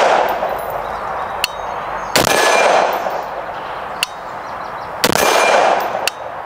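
AR-15-style rifle firing two deliberate single shots about three seconds apart, each with a long echo. Short, sharp metallic pings fall between the shots.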